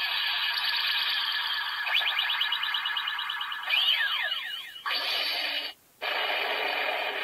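A finishing-move sound effect played through the small speaker of a CSM Kamen Rider Typhoon transformation belt: a hissing, whooshing effect that turns into a rapid ticking about two seconds in, with several tones falling in pitch around four seconds in. It cuts out briefly just before six seconds, then the hiss resumes.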